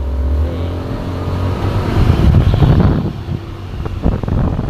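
Diesel engine of a Hino 500 truck running and passing close by. A steady low drone turns into a louder, rougher rumble about two seconds in.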